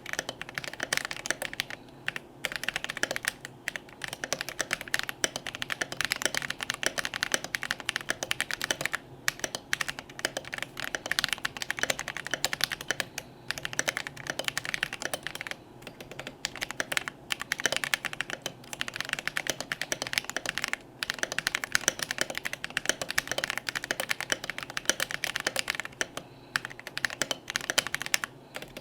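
Fast continuous typing on a Melody96 mechanical keyboard with Invyr V3 Holy Panda tactile switches on a brass plate, under PBT double-shot OSA-profile keycaps. The keystrokes come in rapid runs, broken by brief pauses every few seconds.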